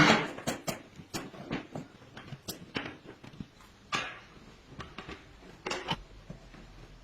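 A string of irregular clicks and knocks, as of small hard parts being handled and set down, loudest at the start with further louder knocks about four and six seconds in.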